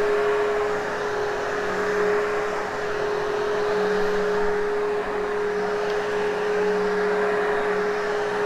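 Hoover Hushtone vacuum cleaner running steadily while vacuuming a very hairy carpet: a constant motor hum over a rush of air, with a lower hum that fades in and out as it is pushed back and forth.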